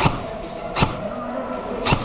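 Airsoft gun firing three single sharp shots, each about a second apart.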